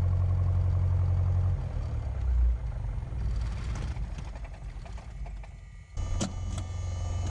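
Piper PA-28's Lycoming engine idling in the cockpit, then running down and stopping as the mixture is pulled to idle cut-off for shutdown. A few sharp clicks sound over a steady hum near the end.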